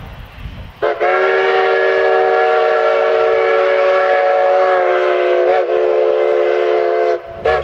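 Steam whistle of a Denver & Rio Grande Western K-36 2-8-2 narrow-gauge locomotive, No. 488, blowing one long chord of several notes. It starts about a second in, lasts about six seconds with a brief waver near the end, and is followed by a short toot.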